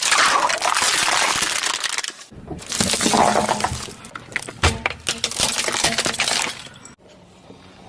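Objects being crushed under a car's tyres: dense crunching and cracking with sharp snaps, in three long stretches, with a low hum underneath from a couple of seconds in and quieter near the end.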